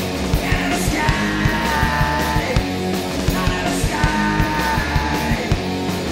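Loud rock music: electric guitars and a steady drum beat, with a singing voice over them.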